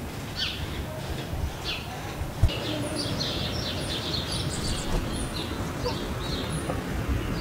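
Small birds chirping in many short, quick, falling calls over a steady low background rumble, with one soft thump about two and a half seconds in.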